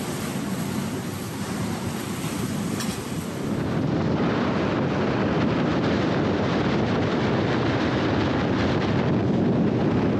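Wind buffeting the microphone over the rush of a rough sea around a sailing catamaran. About four seconds in it becomes louder and heavier.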